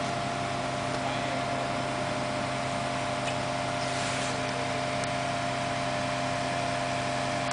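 Demolition excavator's diesel engine running steadily, a constant hum, with a few faint knocks about halfway through.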